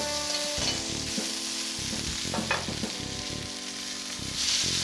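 Hanger steak sizzling in hot fat in a saute pan while it is basted, the fat spooned over it to build the crust. A steady frying hiss.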